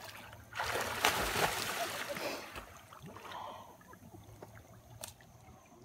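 Water splashing and sloshing as a black Labrador swims, loudest for about two seconds near the start, then fading to faint lapping.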